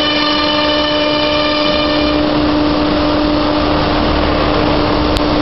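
Milling spindle on a KUKA robot arm running with a steady whine as its cutter carves a block of white foam, over a continuous rushing hiss of cutting. The higher overtones of the whine fade about two seconds in while the main tone holds.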